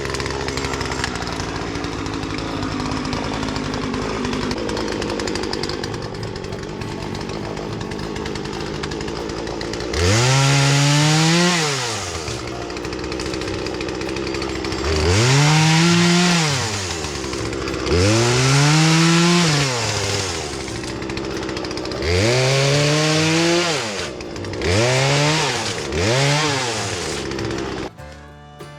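Two-stroke chainsaw running steadily, then revved to full throttle six times, a second or two each, the pitch climbing and dropping back with every rev.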